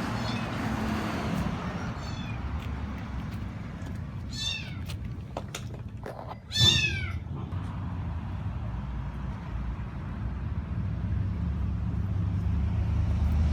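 A kitten meowing three times, a few seconds apart, each call falling in pitch and the last the loudest, over a steady low rumble of background traffic.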